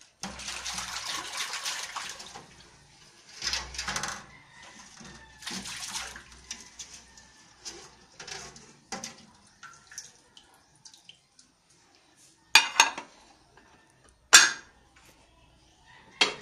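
Dishes being washed by hand in a stainless steel basin of soapy water: swishing and scrubbing in the water in several bursts over the first six seconds, then scattered small clinks. Three sharp clatters of dishes knocking together come about two seconds apart near the end.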